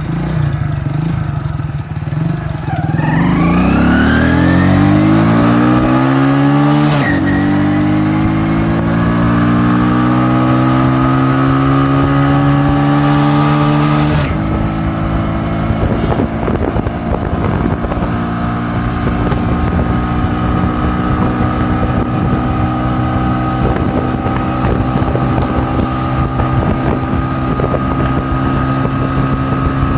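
Modified 100cc motorcycle engine accelerating hard under load: the engine note climbs, drops with a gear change about seven seconds in, climbs again, drops with another change about fourteen seconds in, then holds high steady revs at speed.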